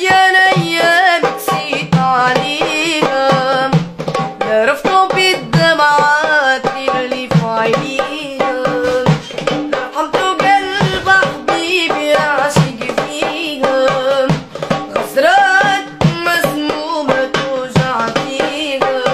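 A boy singing a long, wavering, ornamented melody, accompanied by hand drums beaten in a steady, busy rhythm.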